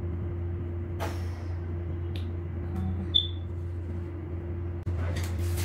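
Steady low hum with background hiss, marked by a few small clicks and one short high chirp about three seconds in.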